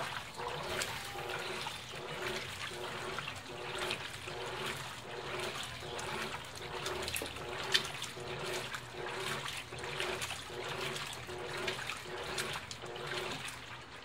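Colormaq 15 kg top-loading washing machine agitating a load of jeans: water sloshing and churning, with a motor hum that pulses about one and a half times a second as the agitator swings back and forth. The agitation stops shortly before the end.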